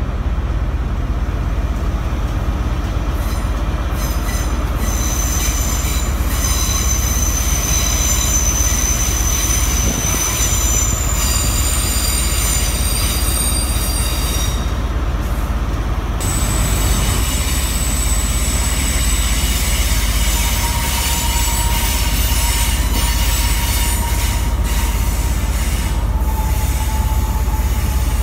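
Heathrow Connect Class 360 electric multiple unit running slowly into the platform over a steady low rumble. Its wheels squeal in a series of high-pitched steady squeals that come and go. A lower, single-pitched squeal holds through the last several seconds.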